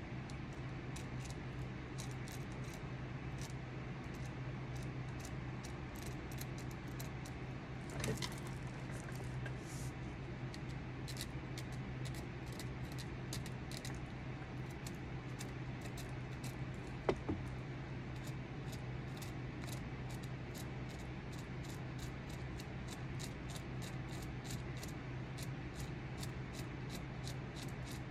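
Small hand-held carving tool scraping and nicking a wooden walking stick in short, quick strokes, about two a second, over a steady low hum. A sharp click stands out about two-thirds of the way through.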